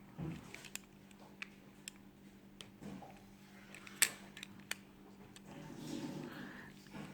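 Scattered light clicks and taps of small plastic parts being handled on an opened PS4 wireless controller, with one sharper click about four seconds in. A faint steady hum runs underneath.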